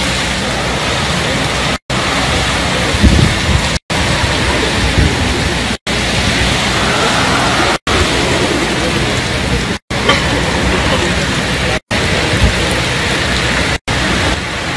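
Heavy hurricane rain and wind: a loud, steady rushing hiss of rain driven by hurricane-force gusts, with a few low surges of wind.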